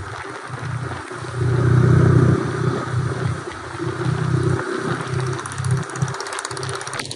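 Motorcycle engine running while riding, heard from on board with wind rushing over the microphone; it swells louder for about a second, a second and a half in.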